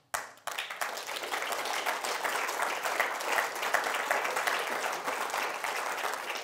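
Audience applauding: a dense, even spread of clapping that starts suddenly just after the pause and begins to ease near the end.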